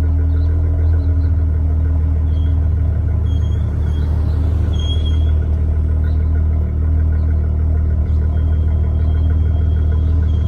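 Dodge Charger engine idling steadily through Flowmaster Super 10 mufflers, a low, even exhaust rumble with no revving.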